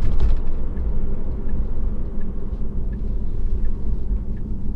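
Steady low road rumble of a moving car, with a faint tick repeating about every three-quarters of a second.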